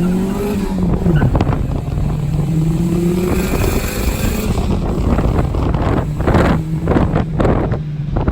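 Car engine revving: its pitch climbs, drops sharply about a second in, then climbs again and runs on under rough, uneven noise in the second half.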